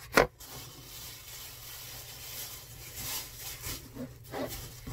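Thin clear plastic bag rustling and crinkling as hands pull it up out of a cardboard box, with one sharp knock just after the start.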